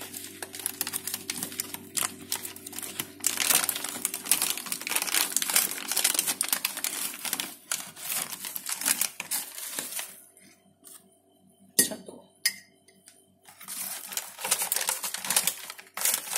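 Plastic Milo packets crinkling and crackling as they are handled and opened, in a dense spell of about ten seconds, a short lull, then another spell near the end.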